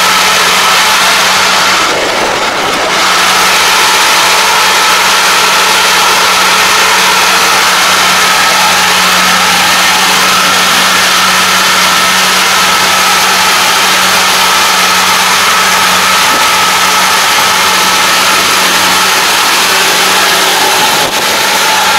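Kubota ARN460 combine harvester running steadily while it harvests rice, its diesel engine and threshing machinery making a loud, even hum with a steady whine over it. The sound dips briefly about two seconds in.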